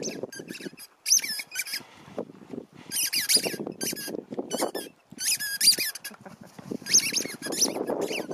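Squeaky rubber dog ball squeezed in a husky's jaws, squeaking in about five quick clusters of high, wavering squeaks over a low rustling.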